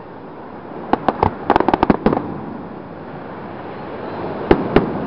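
Aerial fireworks shells bursting in a sharp series of bangs: a few about a second in, a rapid string of quick cracks just after, then two louder single bangs near the end.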